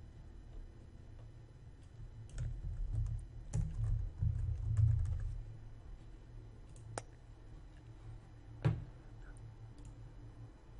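Keystrokes on a computer keyboard for about three seconds, then two separate sharp clicks, typical of a computer mouse.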